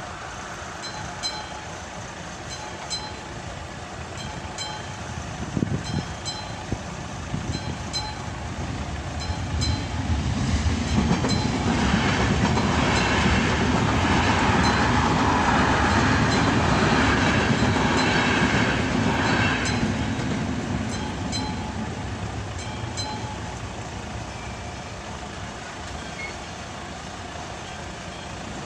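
Railway crossing warning bell of an AŽD 71 crossing, ringing in regular strokes, while a ČD double-deck electric passenger train passes. The train's rumble is loudest from about twelve to twenty seconds in, then fades.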